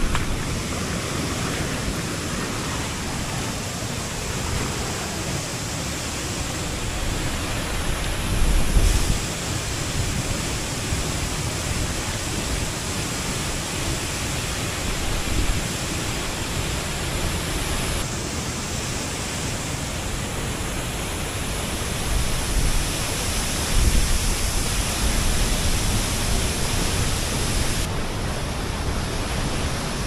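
Rushing water of a waterfall and a rocky river: a steady, even roar of water that changes tone abruptly a few times, with occasional low rumbles.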